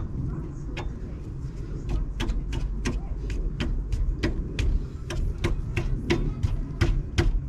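Ratchet spanner clicking as it is worked back and forth to run in the brake caliper adapter bracket bolts, about three sharp clicks a second.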